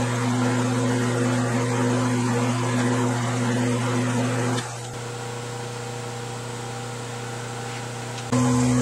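Metal lathe running steadily with a low, even hum while it single-point cuts threads on the end of a motorcycle axle. The hum drops suddenly to a quieter level a little past halfway and comes back up just before the end.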